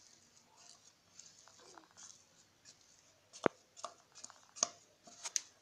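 A spoon scraping soft cooked semolina dough out of a pan onto a ceramic plate. Faint scraping at first, then several short sharp clicks of the spoon against the pan and plate in the second half.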